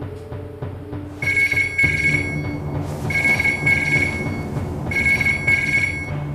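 Mobile phone ringing: three rings of a high electronic ringtone, each about a second and a half long and pulsing, with soft background music underneath.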